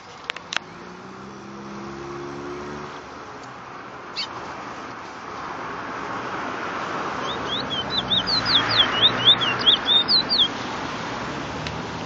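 Caged brown songbird singing a quick run of about a dozen sharp whistled notes, sliding up and down, starting about seven seconds in and lasting some three seconds. A few sharp clicks come near the start and again about four seconds in.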